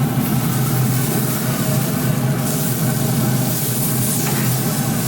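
Steady hum of a Pit Boss 820 pellet grill running on high, with sizzling as ribeye steak fat meets the hot grate.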